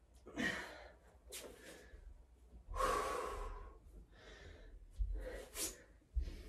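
A woman breathing hard from exertion, about five sharp, forceful breaths in and out, the longest about three seconds in. Two dull thumps come about five and six seconds in.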